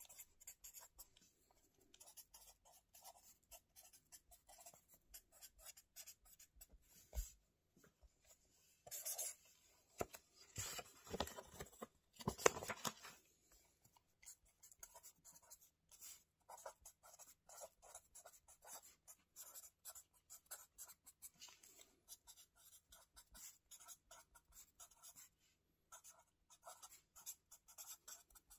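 Pen writing on a spiral notebook's lined paper: a continuous run of short, faint scratching strokes, louder and denser for a few seconds in the middle.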